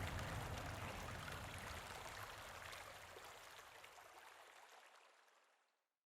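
Rushing, flowing-water noise with faint droplet ticks, fading steadily away until it cuts to silence near the end.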